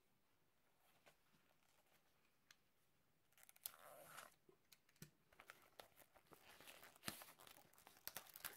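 Plastic shrink-wrap on a mediabook case being opened, with faint crinkling, crackling and tearing that start about three seconds in after near silence.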